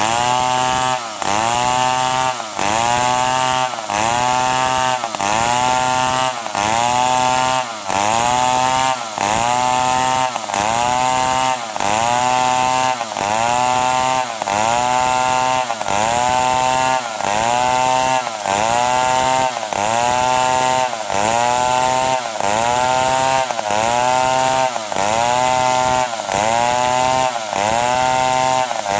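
Stihl 070 two-stroke chainsaw running under load, cutting wood into boards. Its engine pitch dips and recovers in a regular cycle about once a second.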